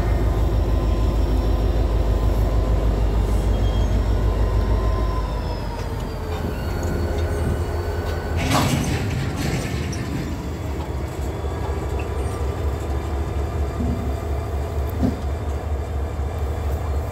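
EMD SD40-2 diesel locomotive's 16-cylinder two-stroke engine throbbing as it passes close by, throttling down about five seconds in as the train slows toward a stop. A short burst of hiss comes near the middle.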